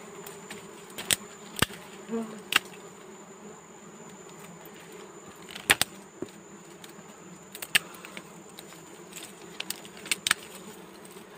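Dwarf honey bees buzzing steadily around their disturbed comb as it is cut from a bush. Several sharp clicks and snaps of twigs and the knife are scattered through it.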